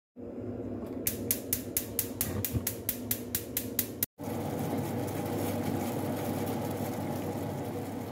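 Gas stove's spark igniter clicking rapidly, about four or five clicks a second for three seconds. Then the lit gas burner runs with a steady rush of flame under a steel pot.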